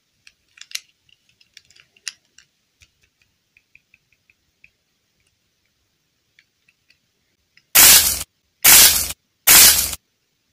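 Faint small clicks and crackles as fingers handle a small plastic doll and soft modelling clay. Then, near the end, three loud bursts of hiss, each about half a second long and evenly spaced.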